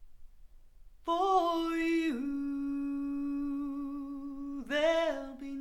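A woman's voice humming a slow, wordless melody, a recorded vocal played back over hi-fi loudspeakers and picked up in the room. It enters about a second in, holds one long steady note, then moves to a new note near the end.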